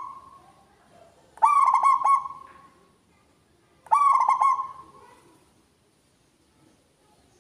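Zebra dove (perkutut) cooing: two loud bursts of rapid staccato coos about two and a half seconds apart, with the last of an earlier call fading at the start.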